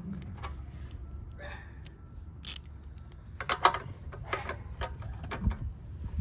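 Irregular metal clicks and clinks of a hand tool tightening a bolt down on the minibike, busiest in the second half.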